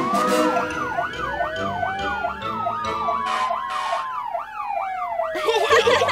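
Cartoon emergency-vehicle siren sounding, a fast up-and-down wail of about two sweeps a second with a slower long rise and fall over it.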